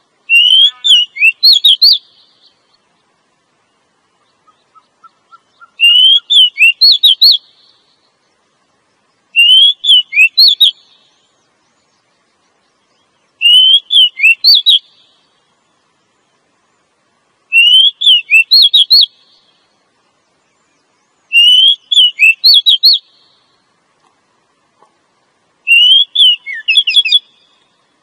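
Female oriental magpie-robin calling: seven short phrases of quick, high whistled notes, each about a second and a half long, repeated about every four seconds. A fainter series of rising notes comes in about five seconds in.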